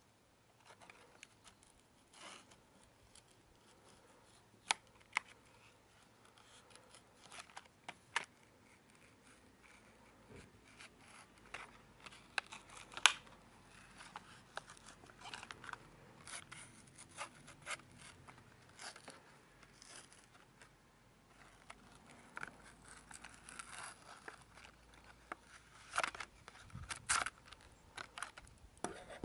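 Knife blade cutting open a clear plastic blister pack on its cardboard backing card: scattered scraping and cutting strokes with sharp clicks and plastic crackle, the loudest click about thirteen seconds in.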